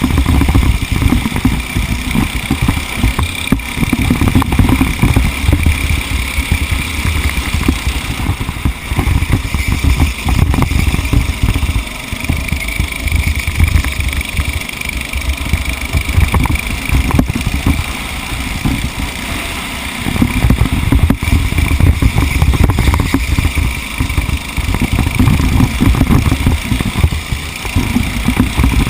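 Vehicle engine running under way, a rough, continuous low rumble with steady hiss above it, rising and falling in level.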